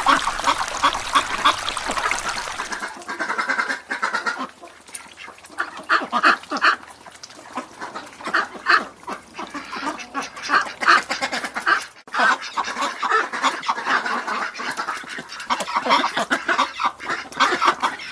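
Farmyard poultry calling over and over in a busy, overlapping chorus, with a brief break about twelve seconds in.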